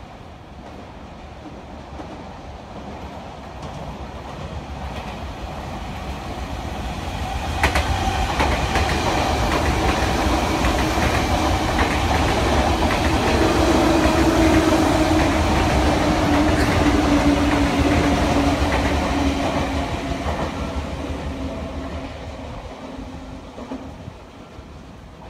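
Sotetsu 9000 series electric commuter train running through a station at speed without stopping: rumble and wheel clatter build over several seconds, peak as the cars go by, then fade away. While it passes, a humming tone slowly falls in pitch.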